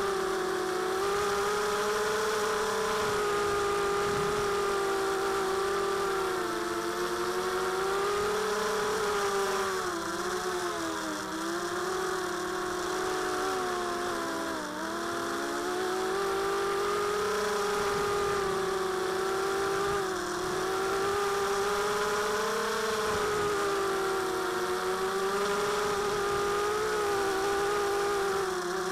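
Tiger Motors MT1306-10 3100 kV brushless motors spinning 5x3 two-blade props on a mini quadcopter, heard from the onboard camera: a steady whine whose pitch dips twice about halfway through and comes back up. The owner says the motor bearings are getting real bad.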